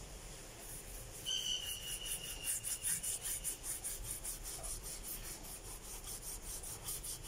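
Small paintbrush scrubbing a wet brass plate: quick back-and-forth bristle strokes, about four or five a second, starting about a second in. A brief high squeak comes near the start of the scrubbing.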